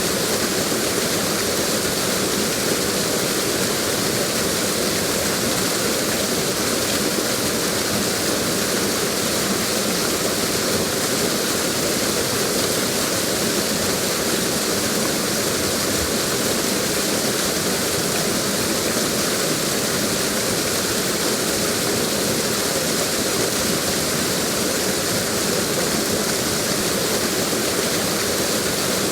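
Steady rushing of running water, an unbroken even wash like a stream or waterfall.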